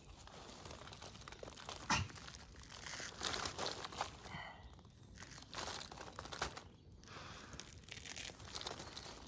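A clump of snowdrop bulbs being handled and shaken: soil crumbling off the roots, roots tearing and leaves rustling, in irregular crackles with one sharp knock about two seconds in.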